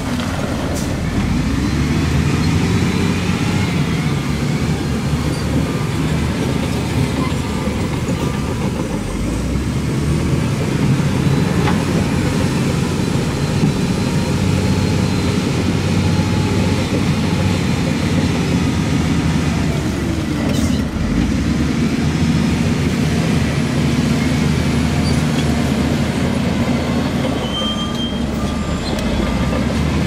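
Diesel engines of heavy earthmoving machines running and working, their pitch rising and falling with load. A faint beep repeats briefly about a third of the way in and again near the end.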